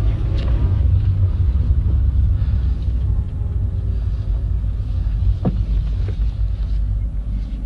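Low, steady rumble of a vehicle engine running on a test drive after a new clutch has been fitted, with a short rising chirp about five and a half seconds in.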